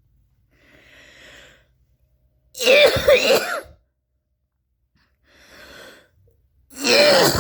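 A young woman coughing: a breath drawn in, then a loud burst of two or three throaty coughs lasting about a second, another breath in, and a second loud burst of coughing starting near the end.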